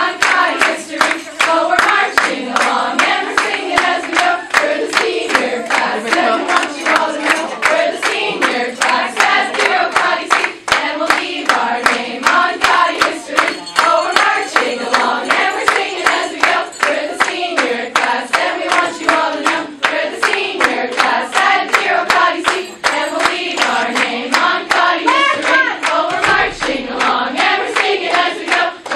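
A group of women singing together in unison while clapping a steady beat, about two to three claps a second.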